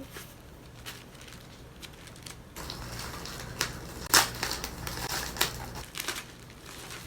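Packaging crinkling and crackling as a small package is opened by hand: faint at first, busier through the middle, with the sharpest crackle about four seconds in.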